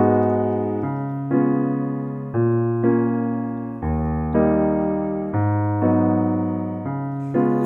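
Background piano music: chords struck about once a second, each left to fade before the next.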